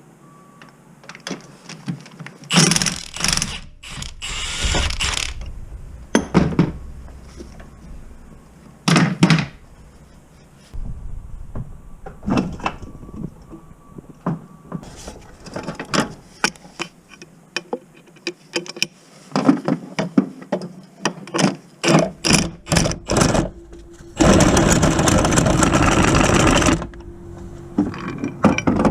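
Mechanic's hand tools working on the van: a ratchet clicking and metal parts clanking and knocking in irregular bursts, with one steadier noisy burst lasting a couple of seconds near the end.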